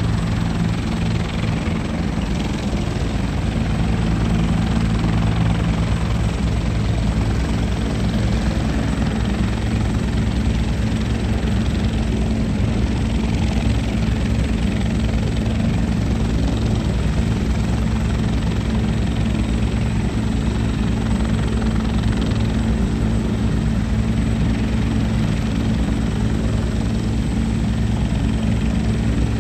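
Bell 412EPi twin-turbine helicopter hovering just above the ground, its four-blade main rotor beating steadily over the turbine whine. The sound holds steady in pitch and level throughout.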